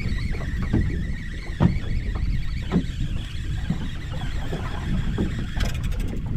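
Water slapping against the hull of a small boat drifting at sea, with irregular knocks over a steady low rumble of wind and water, and a faint steady high whine.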